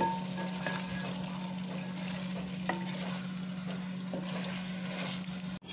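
A spatula stirring chicken masala in a large aluminium pot, the curry sizzling gently on the heat, with a couple of light scrapes against the pot. A steady low hum runs underneath, and the sound breaks off abruptly near the end.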